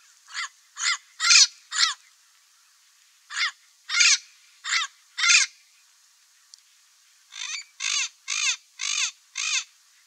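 Turquoise-fronted parrot (Amazona aestiva) giving short squawking calls in three bouts of four or five calls each, about two calls a second, with short pauses between the bouts.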